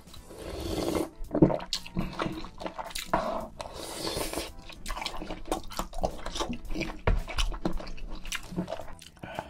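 Close-miked eating sounds: spoonfuls of food sucked off a wooden spoon, then wet chewing and mouth clicks.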